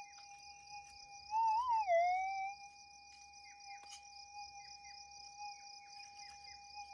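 Minelab GPX 6000 metal detector's steady threshold tone, which warbles up and then down in pitch and grows louder about a second and a half in as a scoop of dirt is swept over the coil: a target signal from something in the scoop. Insects trill steadily behind it.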